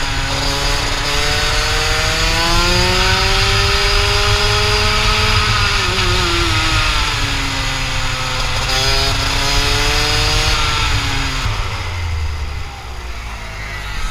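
Rotax Max kart's 125 cc single-cylinder two-stroke engine, heard onboard, revving up hard along a straight, dropping off about six seconds in, revving up again, then easing off near the end as the kart slows. Wind rushes over the helmet microphone underneath.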